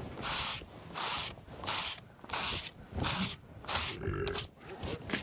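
Hand scraper pushed in quick repeated strokes across the sawn face of a black locust slab, scraping sawdust off the board: an even rhythm of scraping hisses, about one and a half a second.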